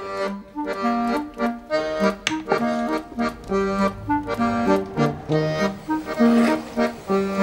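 Background accordion music: a lively melody of short, quickly changing notes.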